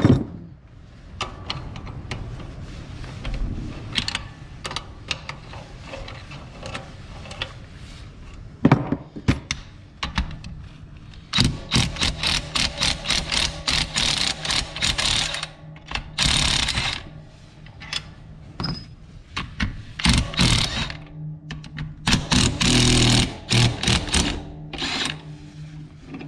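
Cordless impact driver hammering in several bursts as it runs bolts on an Allis-Chalmers HD6 steering clutch plate, with clinks and knocks of steel parts between the bursts; the longest bursts come about halfway through and again near the end.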